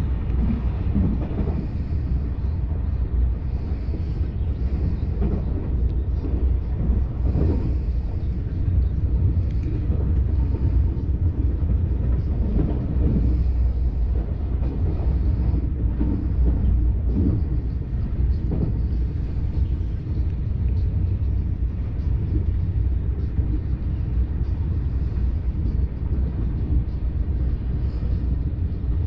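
Steady low rumble of a TGV Duplex high-speed train running on the track, as heard inside the passenger car.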